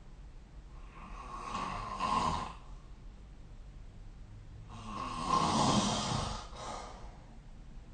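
A sleeping person snoring: two drawn-out snores about four seconds apart, the second one louder.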